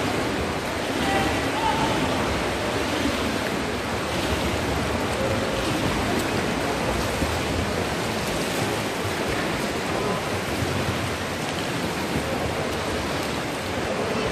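Water splashing steadily as several children dive in and swim a race down the lanes of an indoor pool.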